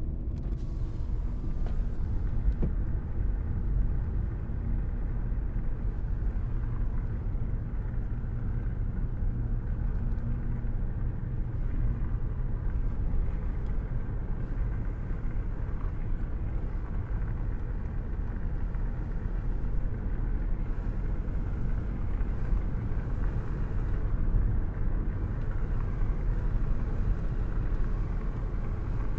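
A car cruising at a steady speed, with an open window letting in wind noise. The result is an even, unbroken low rumble.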